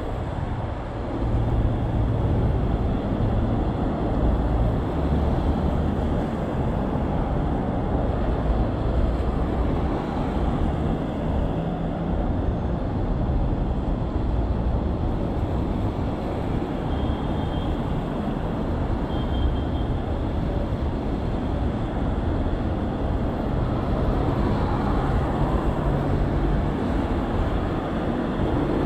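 Steady rush of wind and road noise from a bicycle ride on wet roads, with two short high beeps a little past the middle.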